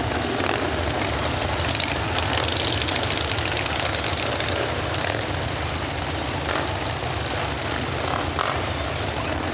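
A steady stream of cruiser and touring motorcycles rumbling past at parade pace, their engines blending into one continuous drone.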